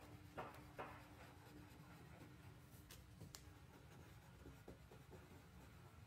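Crayon scratching on paper in short colouring strokes, faint. Two strokes stand out about half a second and one second in, with two small sharp ticks a little after three seconds.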